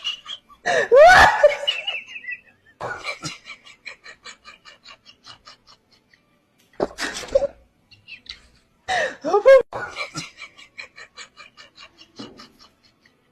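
A person laughing in three bouts. Each bout starts with a short high-pitched cry and trails off into a run of quick short pulses that fade away.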